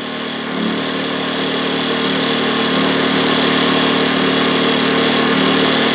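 Champion 73536i 2000-watt inverter generator running at a steady, even pitch on its first run, a quiet small-engine hum with a hiss over it.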